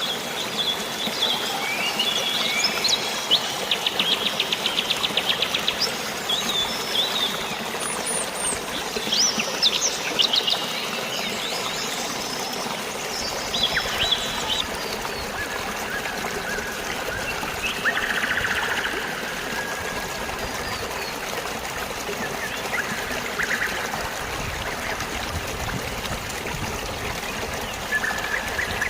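Steady rush of flowing water with songbirds chirping over it. The calls are dense in the first half, including a rapid trill a few seconds in, then thin out to occasional chirps.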